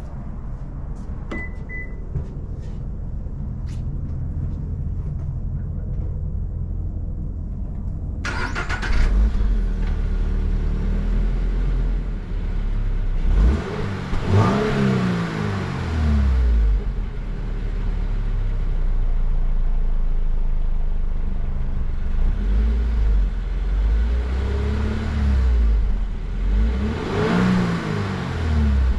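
A 2022 Subaru BRZ's 2.4-litre flat-four running through a Remark double-wall axle-back exhaust: idling steadily at first. About eight seconds in it gets suddenly louder, then it is revved up and let fall back a few times, staying under 4,000 rpm.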